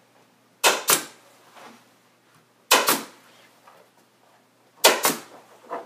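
Staple gun firing staples through the canvas grid cover into the table's edge: three shots about two seconds apart, each a quick double snap.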